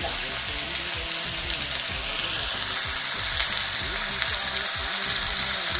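Sliced onions frying in hot oil in a nonstick kadai: a steady sizzle with small crackles, which grows brighter about two seconds in.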